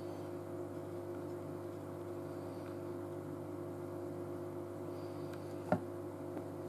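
Steady background hum of several held tones, with one sharp click near the end from the dial or button of a Gardena MasterControl water timer being pressed during programming.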